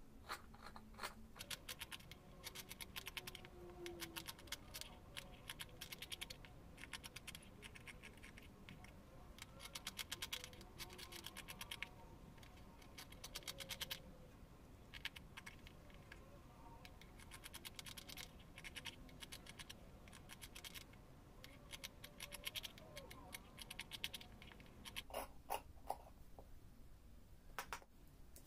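Large steel tailor's shears cutting through corduroy fabric: bursts of quick crunching snips, with short pauses between cuts. A few sharper clicks near the end.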